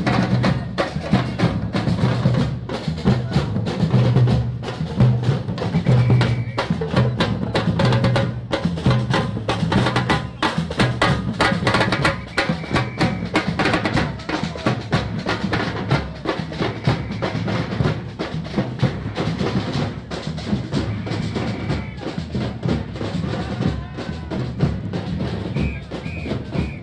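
A troupe of marching drums, mostly large red-shelled bass drums beaten with mallets, playing a busy, steady rhythm together.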